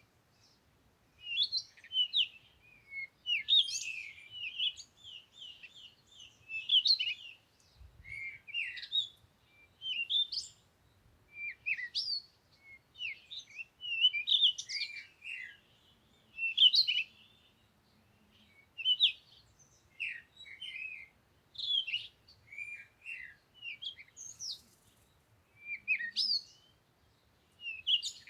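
A small songbird chirping in short bursts of quick, high twittering notes and down-slurred chirps, one burst every second or two with brief pauses between.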